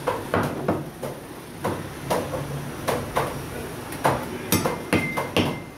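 Heavy butcher's cleaver chopping goat meat on a round wooden chopping block: a run of sharp chops, about two a second, unevenly spaced.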